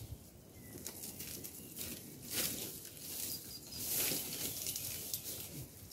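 Dry branches, twigs and leaf litter rustling and crackling as they are handled and dragged on the forest floor. There are small snaps throughout, and the rustling swells twice in the middle.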